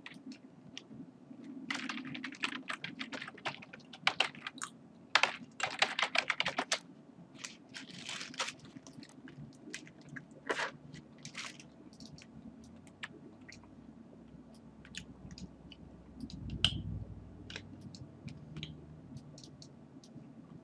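Typing on a computer keyboard in quick bursts of keystrokes, followed by a scattering of single clicks.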